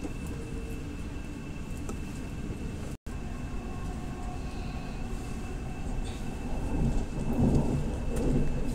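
Steady low rumble of a passenger train running at speed, heard from inside the carriage, with a faint steady whine above it. The sound briefly cuts out about three seconds in, and the rumble grows louder near the end.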